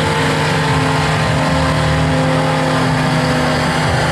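Holden VB Commodore doing a burnout: its engine held at steady high revs while the rear tyres spin against the pad.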